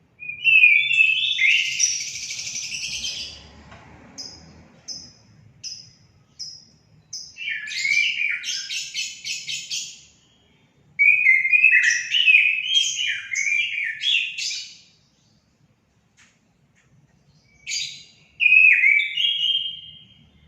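Orange-headed thrush (anis kembang) singing: varied warbling phrases of whistled and harsher notes, in several bursts separated by short pauses, with a run of quick, evenly spaced short notes about four to seven seconds in.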